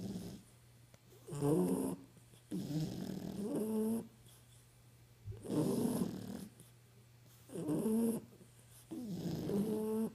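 Sleeping puppies snoring: five pitched, raspy snores, short ones and longer drawn-out ones in turn, with quiet breaths between.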